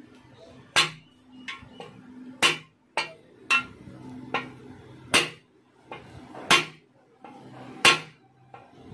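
Hammer blows driving a new needle-bearing bush into the swingarm pivot of a Yamaha FZ S: sharp metal-on-metal strikes, the heaviest about every one and a half seconds, with lighter taps between.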